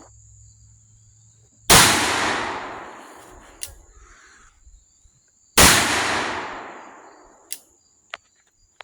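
Two shots from a Colt 1860 Army .44 black-powder percussion revolver, about four seconds apart, each a sharp crack followed by a long echoing decay. A few short clicks come between and after the shots.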